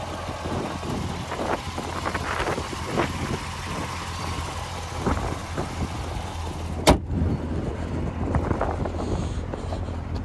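Low steady rumble of a 2019 Corvette Z06's supercharged 6.2-litre LT4 V8 idling, with scattered light knocks. A single sharp knock comes about seven seconds in.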